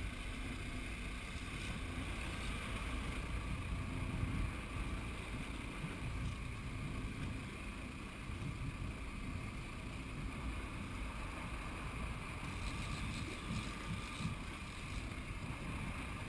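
Sport-fishing boat running steadily, a low engine rumble with water washing along the hull and wind on the microphone.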